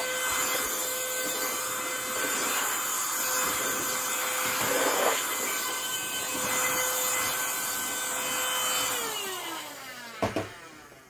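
Electric blower running steadily with a whine, clearing sawdust, then switched off about nine seconds in, its motor winding down with falling pitch, followed by a click.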